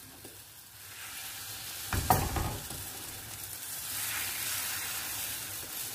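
Potato and egg frittata sizzling in oil in a frying pan, a steady hiss, with one short clatter about two seconds in.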